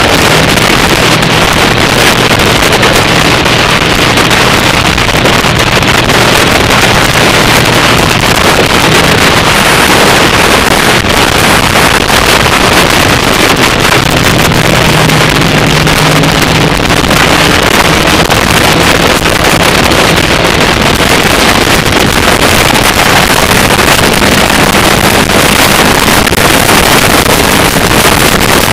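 Heavy wind rush on the microphone of a camera riding on a moving motorcycle, over the steady drone of the motorcycle's engine at cruising speed; the engine note rises slightly about halfway through.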